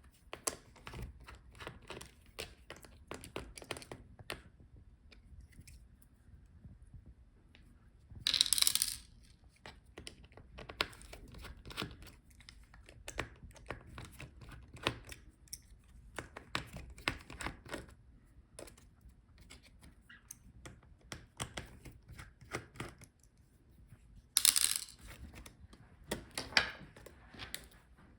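Small clicks and taps of a screwdriver working out the tiny screws holding a laptop's motherboard, with two brief louder scratchy noises, one about a third of the way in and one near the end.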